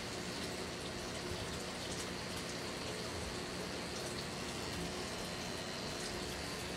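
Pen-style rotary tattoo machine running steadily during tattooing, under a constant hiss.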